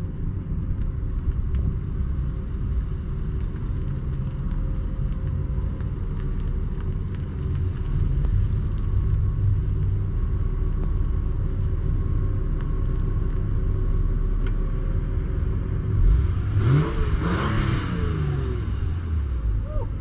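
2000 Honda Accord EX engine running with no exhaust system, only a short open pipe, giving a loud, steady low rumble as the car creeps closer. About sixteen seconds in, the throttle is blipped once and the revs rise and fall.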